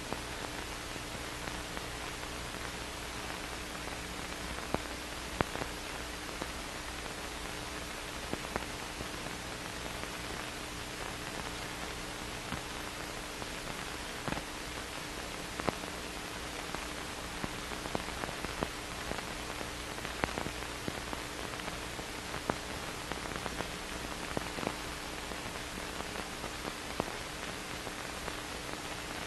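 Steady hiss of an old film soundtrack with no programme sound on it, carrying a faint steady hum and scattered small clicks and pops.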